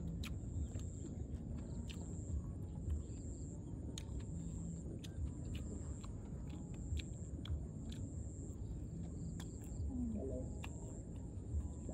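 Insects trilling outdoors in a steady high-pitched note that swells and fades every second or so, over a low rumble of outdoor noise with scattered sharp clicks.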